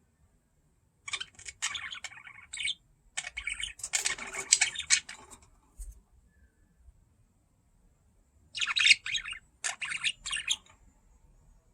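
Budgerigar chirping and chattering in short, scratchy, high-pitched bouts: a run of about four seconds starting a second in, then another burst of chirps a few seconds later.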